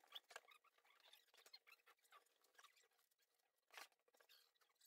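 Near silence with faint, scattered rustles and small clicks, with a slightly stronger rustle near the end: a gloved hand handling the wiper-motor and cowl assembly.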